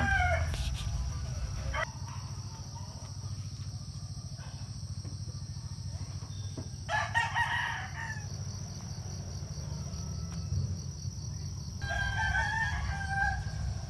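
A rooster crowing twice, once about seven seconds in and again near the end.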